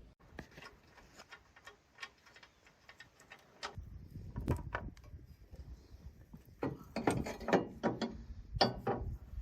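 Ratchet wrench clicking as a sawmill log backstop is bolted on: a run of quick faint clicks, then louder clicks and metal knocks from about four seconds in.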